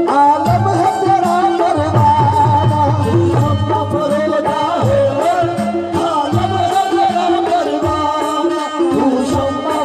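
Live qawwali music: a wavering sung melody with harmonium, over a steady hand-drum beat.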